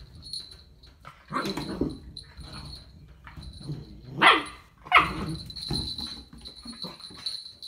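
Dog barking: a few quieter barks about one and a half seconds in, then two sharp, loud barks about four and five seconds in.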